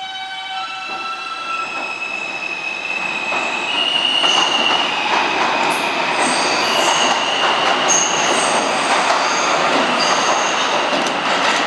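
R160 subway train pulling out of a station. Its traction motors whine in rising steps as it accelerates, then from about four seconds in the cars run past loudly with wheel-on-rail rolling noise and high-pitched wheel squeal.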